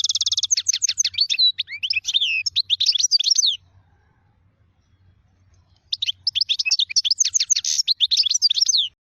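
A caged finch singing fast twittering phrases, with a rapid trill at the start and quick sweeping notes. The song comes in two bursts, about three and a half seconds and three seconds long, with a pause of about two seconds between them.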